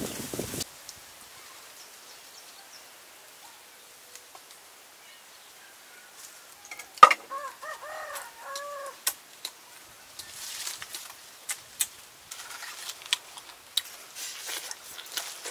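A chicken calls about seven seconds in with a run of short rising-and-falling notes, just after a sharp click. Then come scattered wet clicks and crackles as raw honeycomb is bitten and sucked straight off the branch.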